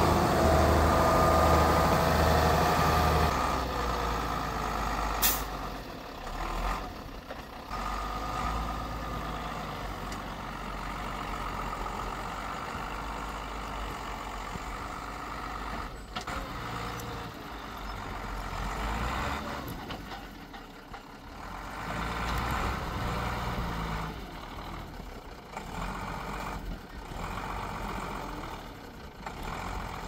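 Mercedes Unimog truck's diesel engine running as the truck drives through snow, loudest in the first three seconds, with a short sharp click about five seconds in.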